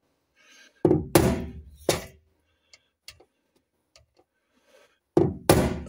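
A hammer strikes a screwdriver set against the fuel pump locking ring on a Jaguar XK8's fuel tank, knocking the ring round to undo it. Three sharp strikes come about a second in, then two more near the end.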